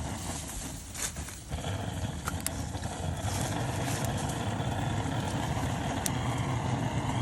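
Gas torch burner running with a steady rushing flame while lighting the leaves in a fire pit. It grows a little louder and steadier about a second and a half in.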